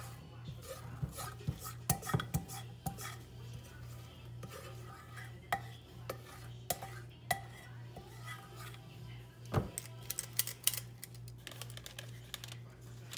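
Stainless-steel squeeze-handle cookie scoop clicking and scraping as cookie dough is scooped and released, an irregular series of sharp clicks and clinks with the loudest about nine and a half seconds in. A steady low hum runs underneath.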